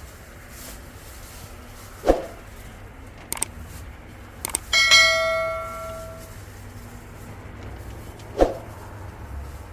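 A metal object is struck once and rings with a bell-like tone that fades over about a second and a half, with a few light clicks before it and two dull knocks, one about two seconds in and one near the end.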